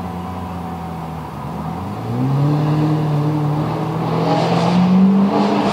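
Lamborghini engine running at a steady note, then getting louder about two seconds in as it pulls harder, its pitch climbing slowly.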